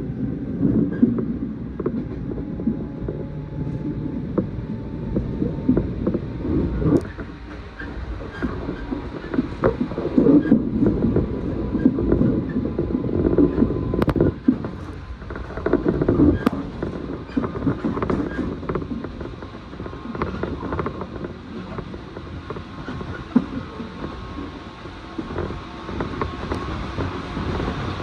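Electric train running, heard from inside the passenger car: a steady rumble of wheels on rail with scattered clicks over the rail joints and a faint steady whine.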